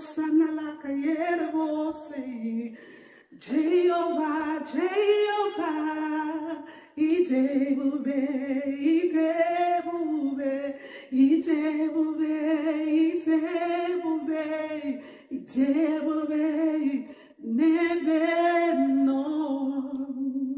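A woman singing a worship song solo with no accompaniment, in long held phrases broken by short pauses for breath.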